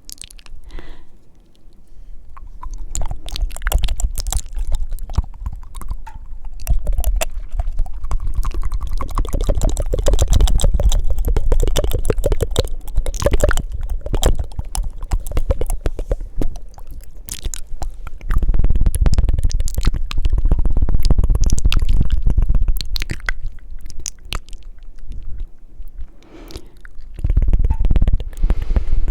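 Close-miked ASMR mouth sounds: fast wet tongue flutters and clicks, with breaths giving a low rumble on the microphones. There are runs of rapid, evenly spaced flutter clicks in the middle, and it eases off briefly near the start and again a few seconds before the end.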